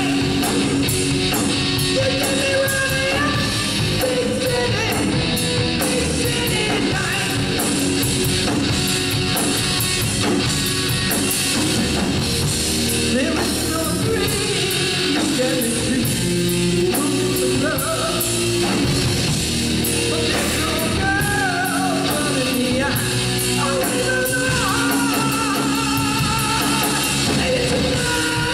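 Live rock band playing at a steady, loud level: a male singer over electric guitar, bass guitar and a drum kit keeping a steady beat with cymbal hits.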